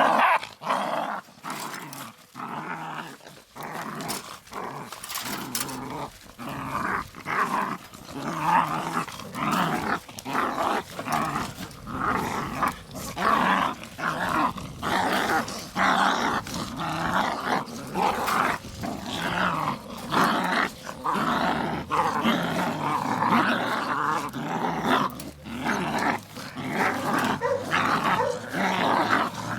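Puppies growling in a run of short, closely spaced bursts that grows denser and louder after about ten seconds.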